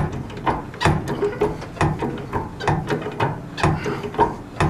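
Hand-operated hydraulic bridge jack being worked: a run of metallic clicks and clunks from its scissor linkage and lock, two or three a second at uneven spacing.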